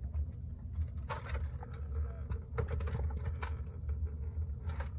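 Scattered light clicks and knocks of tools and metal parts, over a steady low hum.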